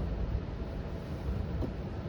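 Steady low road and tyre rumble inside the cabin of a moving Cruise self-driving electric car, a Chevrolet Bolt.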